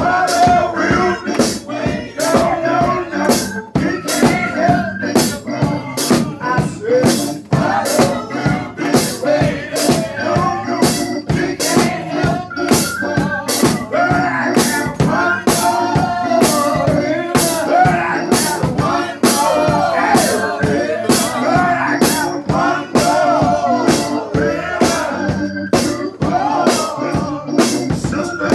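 Live gospel music: a man sings lead through a microphone, his voice rising and falling, over a steady percussive beat of about two strokes a second.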